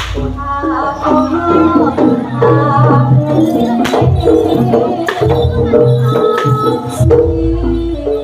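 Live jaranan music: hand drums and pitched percussion play a busy rhythmic pattern over a sustained melody, with a deep low stroke at the start and another about seven seconds in.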